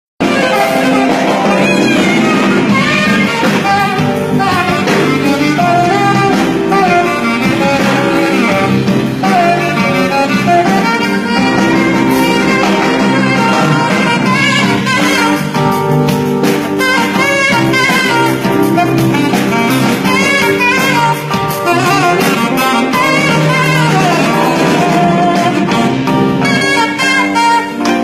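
Saxophone improvising a bending, ornamented melody, played live with a band; an electric bass holds steady low notes beneath.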